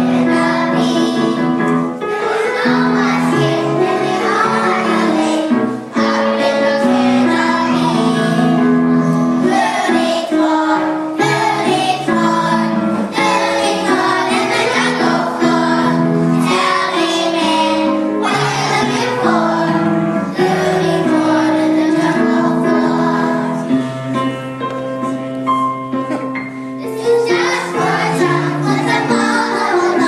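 A group of children singing a song together.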